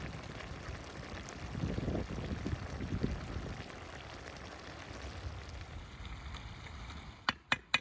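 Lamb and dried-fruit stew simmering in a wide pan over an open fire, a steady bubbling. A few sharp clicks near the end.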